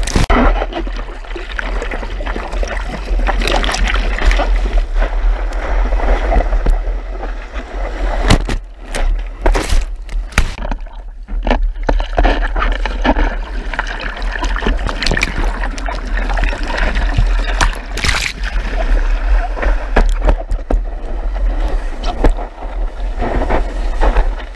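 Surf and whitewater rushing and splashing around a surfboard-mounted action camera, with water slapping over the camera housing and a constant low rumble.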